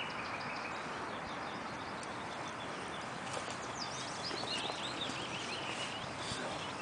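Outdoor background hiss. About three seconds in, a small songbird sings a quick run of short chirps that step down in pitch, lasting about two seconds.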